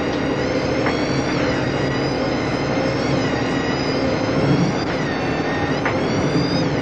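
Tugboat's diesel engine running steadily under way, a constant drone heard from inside the wheelhouse.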